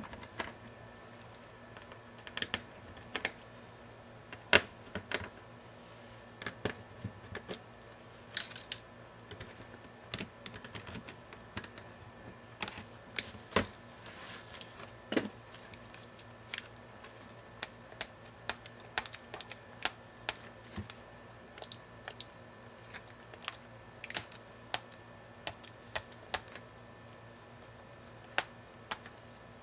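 Hands handling a laptop's LCD panel and its plastic display cover: irregular light clicks, taps and knocks as the parts are lifted, tilted and set down.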